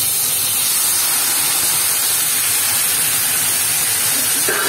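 Chopped tomatoes sizzling in a very hot kadhai of ghee and cumin seeds just after they are tipped in, a loud, steady hiss of frying.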